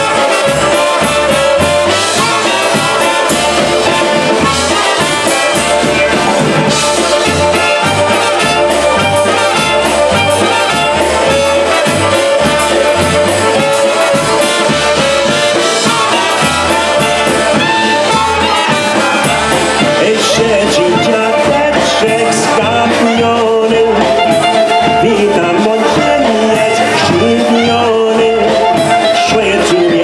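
Live polka band playing, with trumpets and a clarinet carrying the melody over a steady, evenly pulsing bass beat.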